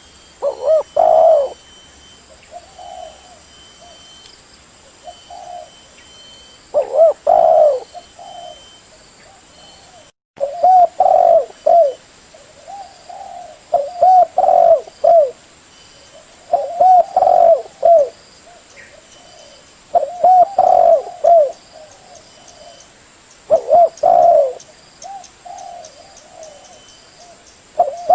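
Spotted dove cooing: repeated phrases of low coos, each opening with a couple of loud notes followed by softer ones, about every three seconds. The sound cuts out for a moment about ten seconds in.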